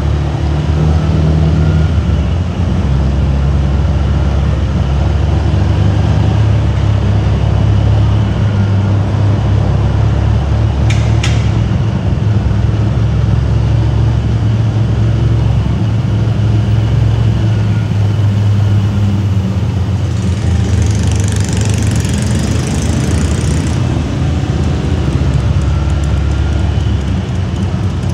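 Steady low drone of a vehicle's engine and road noise while driving, with a brief tick about eleven seconds in and a hiss rising over it for a few seconds near twenty seconds.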